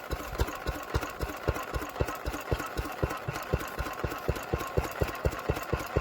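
An engine idling with an even, low thumping beat of about six pulses a second.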